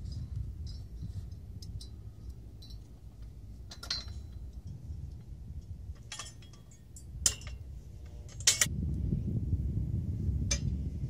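Scattered metal clinks and clanks from the steel frame and tow bar of a Shattuck reel mower being handled and swung out by hand, the two loudest about 7 and 8½ seconds in, over a low rumble that grows louder near the end.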